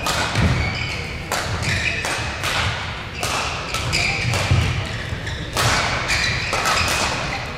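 Badminton singles rally: rackets strike the shuttlecock sharply about once a second, amid thuds of footwork and short high squeaks on the court.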